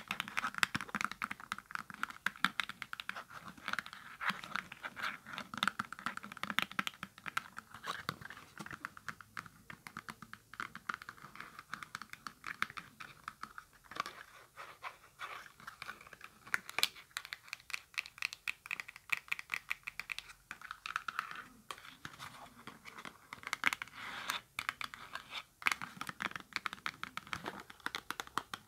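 Long fingernails tapping and scratching fast on a small cardboard cosmetics box, a dense run of quick, irregular clicks.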